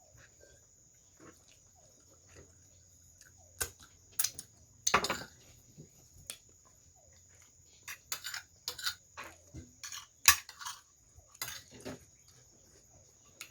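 Cutlery clicking and scraping against a plate in scattered, irregular clinks, with chewing, over a faint steady high-pitched tone.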